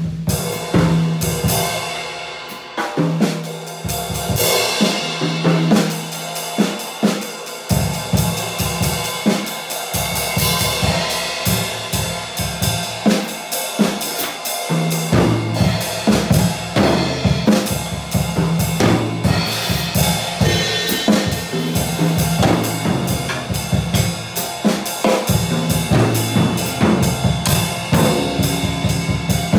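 A drum kit being played in a steady groove, with dense kick and snare hits under a continuous wash of cymbals.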